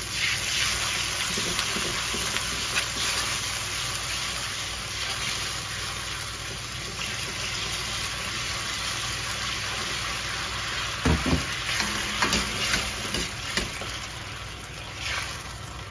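Salt sauce bubbling and sizzling in a hot iron wok while water-dissolved potato starch is stirred in with a metal ladle to thicken it. A few short knocks and scrapes of the ladle against the wok come about eleven to thirteen seconds in.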